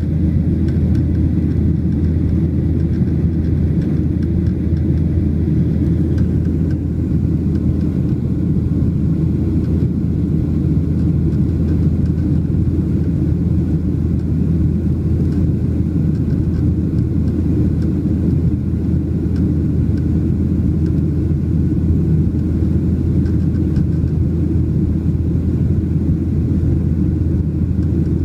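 Boeing 737-800 cabin noise in the climb after takeoff: the CFM56-7B engines and airflow make a steady low rumble, heard from a window seat over the wing, with a faint steady whine above it.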